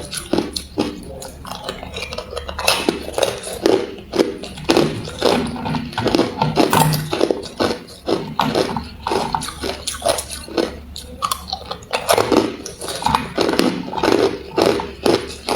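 Hard crushed ice being bitten and chewed close to the microphone: a rapid, irregular run of sharp crunches, several a second.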